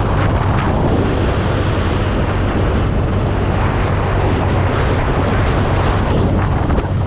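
Heavy wind noise on the microphone of a moving BMW R nineT Urban G/S motorcycle, with its air/oil-cooled boxer-twin engine running steadily underneath.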